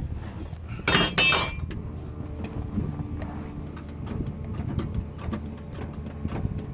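Chevy Nova hot rod's engine being started after a long sit: a brief loud burst about a second in, then the engine running with a steady low sound and scattered ticks.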